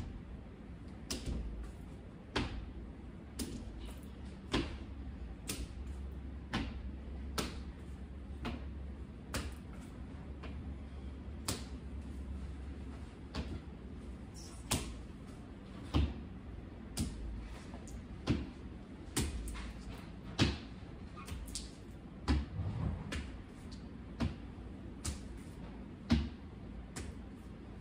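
Irregular sharp knocks and clicks, about one or two a second, from a squeegee and cloth working over a sliding glass door and its frame. A low rumble runs underneath and is stronger for a stretch in the first half.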